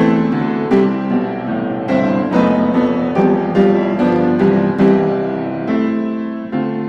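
Background music: solo piano playing a slow melody with sustained chords.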